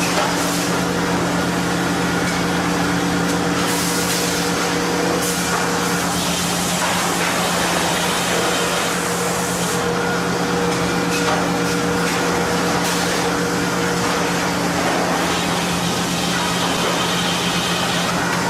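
Sawmill machinery running steadily with a constant motor hum and a noisy rush, which turns brighter and hissier for a few seconds at a time.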